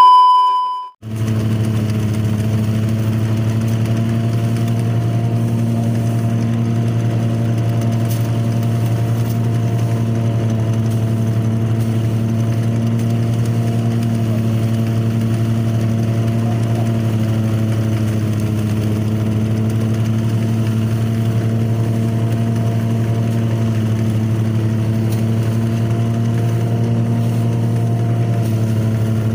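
A brief electronic test-tone beep, then an engine-driven portable rice thresher running at a steady, even hum while rice stalks are fed into it.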